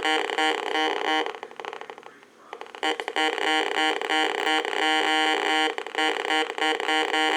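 Heathkit GD-1190 metal detector's audio tone, a buzzy pitched note chopped on and off several times a second, dropping out for about a second and a half before starting up again.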